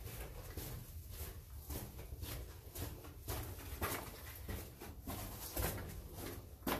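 Footsteps on the wet, rocky floor of a narrow mine tunnel, a steady walk of a little under two steps a second.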